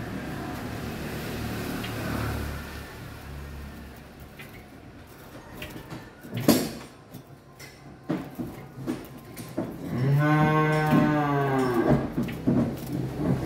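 A cow moos once, a long call of about two seconds, near the end. A sharp knock comes about six and a half seconds in.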